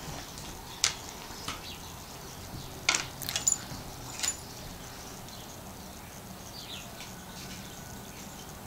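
Metal tags on an English coonhound's collar clinking a handful of times, a few sharp clicks with a brief high ring, as the dog moves and sniffs about. Then only faint room noise for the last few seconds.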